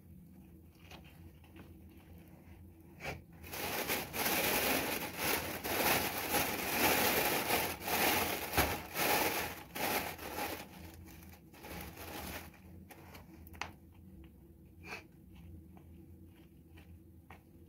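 Plastic bag rustling and crinkling as hands dig soil out of it, loud for about nine seconds from a few seconds in. Before and after it, faint scratches and ticks of soil being handled in a clay pot.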